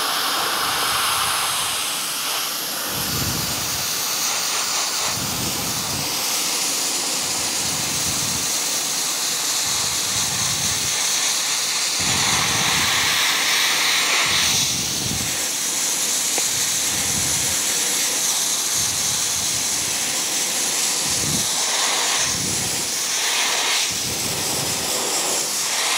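Dry ice blaster nozzle blasting painted car bodywork at 60 PSI air pressure: a continuous loud hiss of compressed air and dry ice, steady in level, with an irregular low pulsing underneath.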